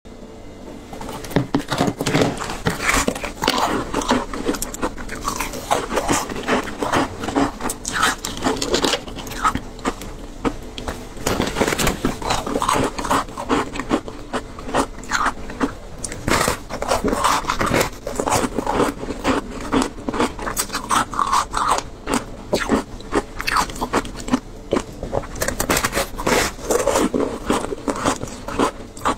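Close-up biting and crunching of frozen ice glazed with passion fruit pulp: a continuous stream of crisp crunches and chewing, starting about a second in.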